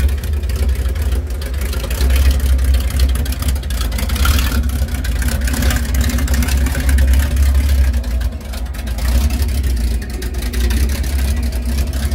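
Gasser-style drag car's engine running loud and rough with a deep, pulsing rumble as the car creeps slowly past.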